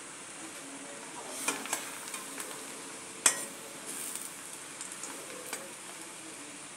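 Cabbage frying in a pan with a steady sizzle while a spoon stirs it, with a few sharp clicks of the spoon against the pan, the loudest a little over three seconds in.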